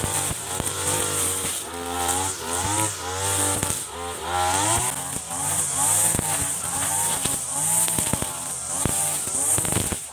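Mitsubishi TU33 brush cutter's 33 cc two-stroke engine running under load while cutting grass, its pitch swinging up and down again and again as the throttle is worked and the head bites into the weeds.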